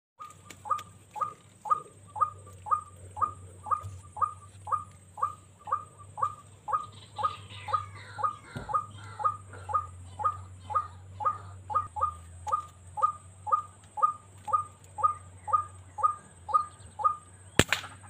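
White-breasted waterhen calls: a short, even 'kwak' repeated about twice a second in a steady rhythm. A single sharp crack sounds near the end.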